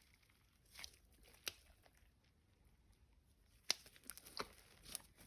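Glossy slime being handled, giving scattered, sharp, sticky clicks and pops, about half a dozen, with the loudest about two-thirds of the way through.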